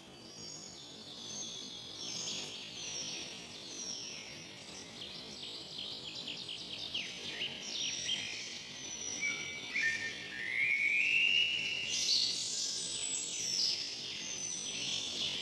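Several songbirds singing and calling together: short falling whistles throughout, a fast trill about halfway through, and a louder rising-and-falling whistle about two-thirds of the way in.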